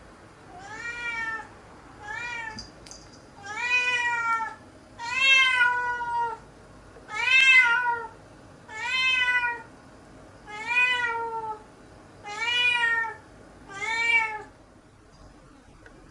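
Domestic cat meowing repeatedly, nine long meows each rising then falling, about one every second and a half, stopping near the end. A former outdoor cat calling at the hour it usually went out to the garden: asking to be let out.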